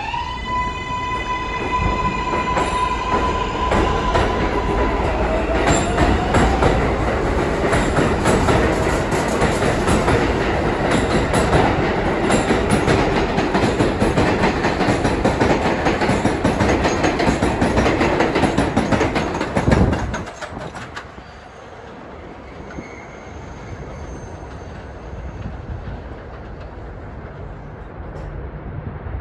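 R188 subway train pulling out of the elevated station. Its traction motors give a steady whine for the first few seconds, then wheels rumble and clatter on the track as the cars pass for about 20 seconds. The noise falls off sharply once the last car has gone.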